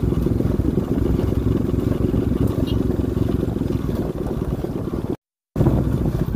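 Motorcycle engine running while riding, the rider's Bajaj Pulsar NS200 heard from its on-board camera, a steady dense rumble. It drops out completely for a split second about five seconds in.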